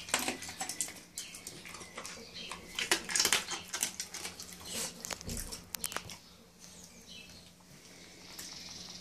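Dog eating dry kibble from a metal bowl: a quick run of crunches and clicks of food on the bowl, thinning out after about six seconds.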